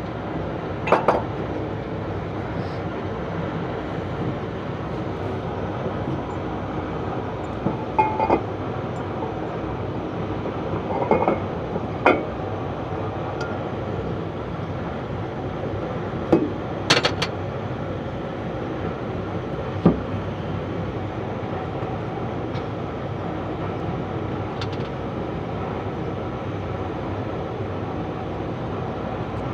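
Steady mechanical drone with occasional sharp metallic clinks and knocks of tools and steel parts being fitted on a bulldozer's gear and clutch assembly.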